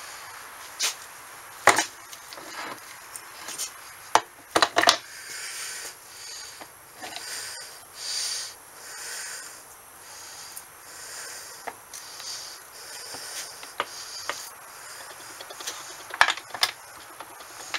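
Steel gears and shaft of a Peerless MST transaxle being fitted by hand into its aluminium case: irregular sharp clicks and knocks of metal on metal, with rubbing and scraping of greasy parts between them, loudest in a cluster a few seconds in and again near the end.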